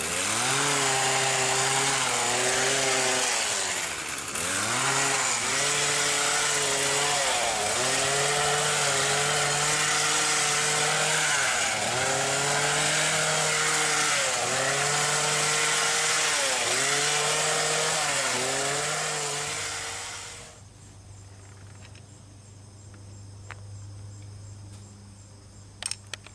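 A small motor running loudly, its speed dipping briefly and picking back up every couple of seconds, then cutting off about twenty seconds in. A low steady hum and a few light clinks follow.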